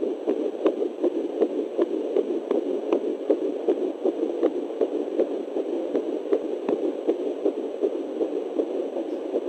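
Fetal doppler picking up a 9-week fetus's heartbeat: a fast, even whooshing pulse of about two and a half to three beats a second over the device's steady static hiss.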